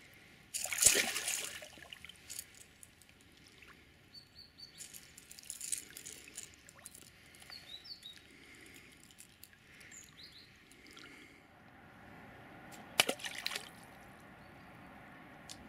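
Water splashing around a landed pike held by a wading angler: a loud splash about a second in, smaller splashes and sloshing through the middle, and another sharp splash near the end as the released pike swims off. A few faint bird chirps in between.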